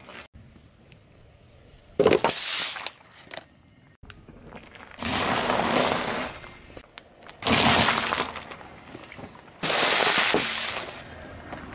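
A car tyre rolling over objects and crushing them, in four separate crunching, cracking bursts of about a second each with quiet gaps between. About halfway through, sandwich crackers snap and crunch under the tread; near the end, a foil-wrapped packet crumples and crackles.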